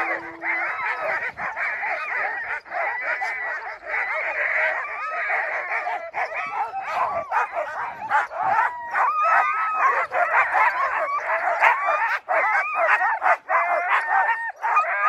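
A team of harnessed sled dogs (huskies) barking, yipping and whining all together in a dense, continuous chorus of overlapping calls.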